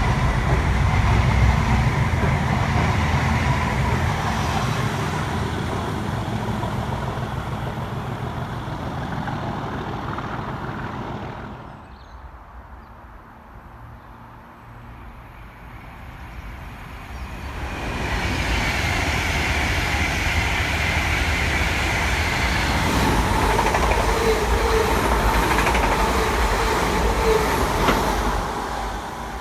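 Train wheels rumbling on the rails as a hauled rake of c2c Class 720 electric units rolls past and fades away. About twelve seconds in it drops to quieter platform ambience, then a London Northwestern electric multiple unit passes close at speed with a steady rumble and a whine.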